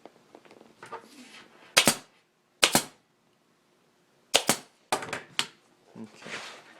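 Staple gun firing staples into a plastic motorcycle seat pan to hold a new seat cover: about six sharp snaps, some in quick pairs, with light rustling of the cover material between them.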